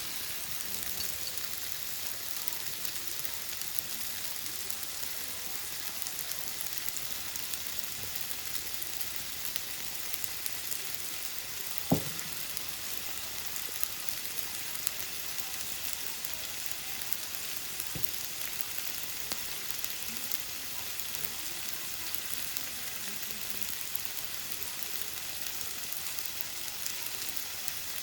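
Yakisoba noodles sizzling steadily as they fry in a hot pan. A sharp knock comes about twelve seconds in, and a lighter one a few seconds later.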